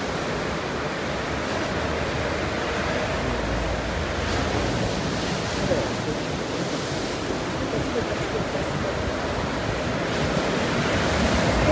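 Sea surf breaking and washing up a sandy beach: a steady rush of waves, with wind buffeting the microphone at times.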